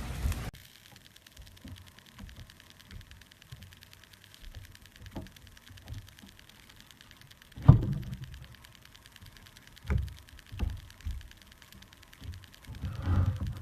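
A few short, soft thuds and knocks over a quiet background, the loudest about two-thirds of the way through.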